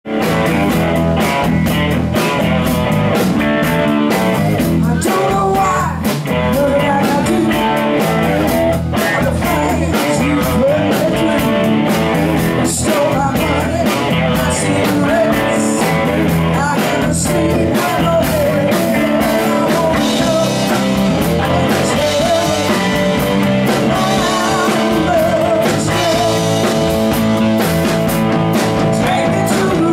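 Live rock band playing a song: electric lead guitar, strummed acoustic guitar, electric bass and drums, with a steady beat.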